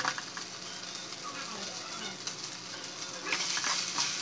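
Pasta sizzling in a hot pan, with a few light taps near the start. About three seconds in a wooden spatula starts stirring and scraping the pasta around the pan, and the sizzle gets louder.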